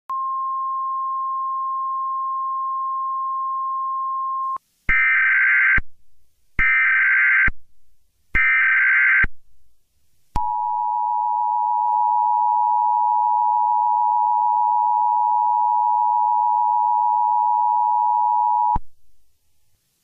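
A steady single beep tone for about four and a half seconds, then three short screeching bursts of Emergency Alert System header data, followed by the EAS two-tone attention signal held steady for about eight seconds, announcing a civil emergency message.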